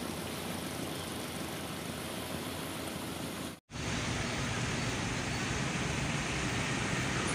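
Steady rushing outdoor noise with a low engine-like hum, broken by a brief silent gap at a cut about three and a half seconds in; after the gap the hum is stronger.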